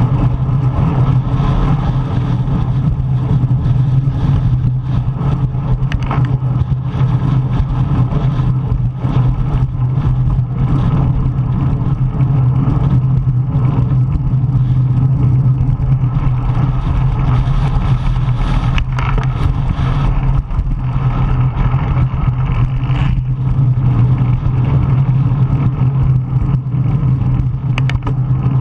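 Strong wind buffeting the microphone of a cyclist riding in 40+ mph winds: loud and steady, strongest low down.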